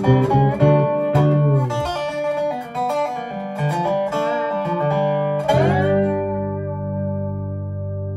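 Harp, dobro and fretless bass playing an old-time tune to its end: quick plucked runs, the bass dropping out for a few seconds, then a final chord struck by all three about five and a half seconds in, with the dobro's slide gliding down into it, left to ring and slowly fade.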